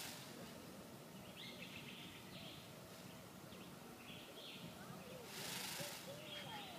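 Small birds chirping faintly and intermittently, with a brief rustling hiss about five seconds in.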